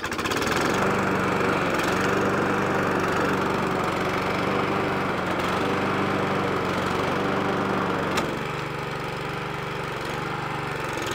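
John Deere walk-behind rotary mower's petrol engine running steadily at full throttle. It gets a little louder just after the start as the rotor clutch is engaged and the blade spins up: the refurbished clutch is taking up the blade. A single sharp click about eight seconds in.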